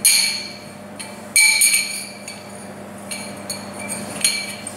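Lengths of steel tube knocking together as they are handled, each knock ringing with a bright metallic tone; four clinks, spaced a second or more apart.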